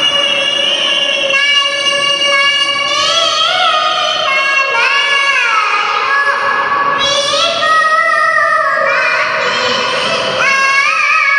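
A young girl's voice reciting the Quran in the melodic tilawah style, holding long high notes and decorating them with quick ornamented runs and slides.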